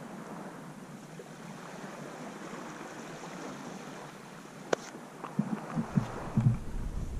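Steady wash of small lagoon waves and wind. About two-thirds of the way through a single sharp click, then a run of low thumps and a low rumble.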